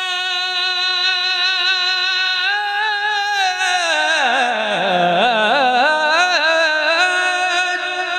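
A man's singing voice holds one long note for about four seconds, then slides down into a wavering, ornamented run that climbs back up: Urdu verse sung in tarannum, the melodic style of recitation at a mushaira.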